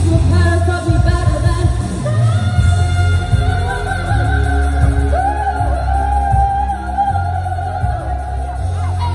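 A woman singing live into a microphone over loud amplified pop music with a strong bass line. She holds a long note near the middle.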